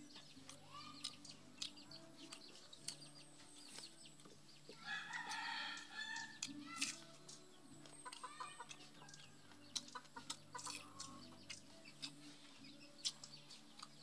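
A rooster crows once, about five seconds in, with chickens clucking in the background around it. Between the calls come scattered soft clicks and smacks of eating by hand.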